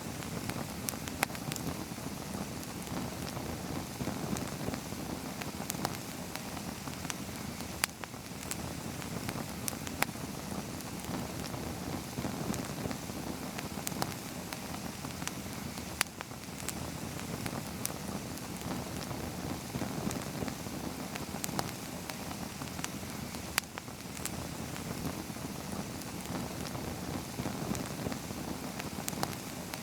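Small wood campfire burning steadily, with sharp crackling pops every second or two.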